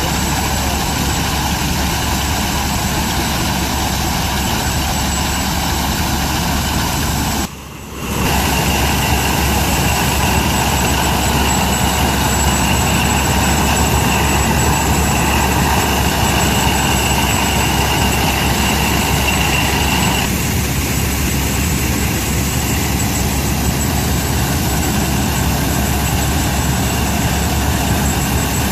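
Belt-driven McCormick-Deering threshing machine running steadily while being fed sheaves of grain, a dense mechanical din of its working parts. The sound drops away briefly about eight seconds in, and a higher whine rides on top from then until about twenty seconds in.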